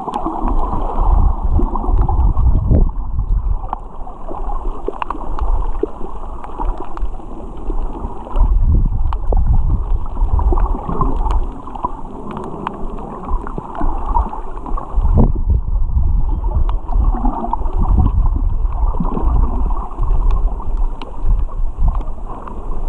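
Underwater sound heard through a camera's waterproof housing: muffled rushing and gurgling of water with surging low rumbles, and many small scattered clicks.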